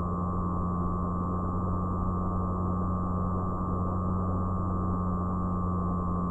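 Fixed-wing FPV model plane's motor and propeller running at steady throttle, heard through the onboard action camera's muffled microphone: a steady low drone with a higher steady hum on top, over a rush of airflow noise.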